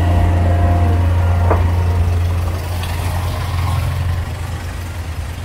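A truck's engine running close by, a steady low drone that fades over the last couple of seconds, with rain hissing on the wet street. One short sharp sound cuts through about one and a half seconds in.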